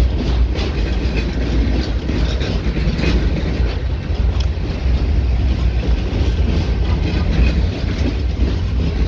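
Freight train of empty flatcars rolling past: a steady low rumble with irregular clacking and rattling of the wheels on the rails.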